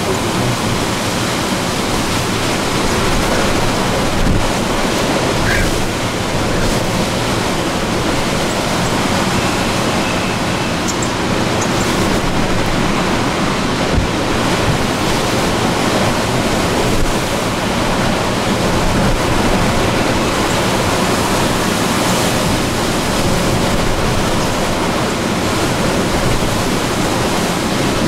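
Hurricane Ida's wind and rain making a loud, steady rushing noise, swelling a little in gusts.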